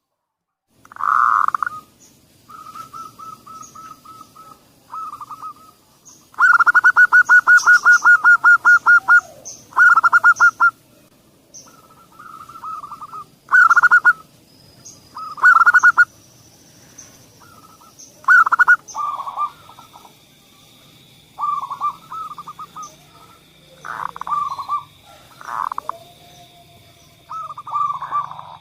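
Zebra doves (perkutut) cooing in repeated phrases of rapid, purring staccato notes, with one long fast rattling phrase about a quarter of the way in. Small birds chirp faintly behind, and a steady high tone joins about two-thirds of the way through.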